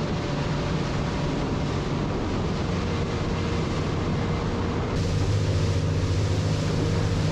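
Aluminium Extreme 745 fishing boat running at speed: a steady engine drone under the rush of wash and wind. About five seconds in the sound switches to a louder, deeper engine drone with more spray hiss.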